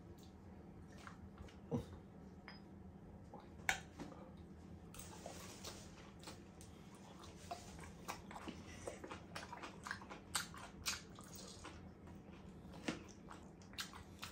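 Steel knife and fork clicking and scraping against a ceramic platter as a sirloin steak is cut up, in scattered sharp clicks that come thickly from about five seconds in, with close-miked mouth sounds of eating.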